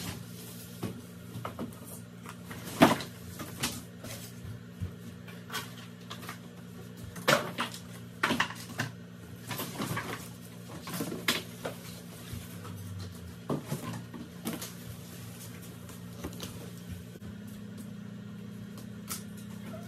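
A box spring being unboxed: irregular knocks, thumps and scrapes as the cardboard box and the frame pieces inside it are handled, over a steady low hum.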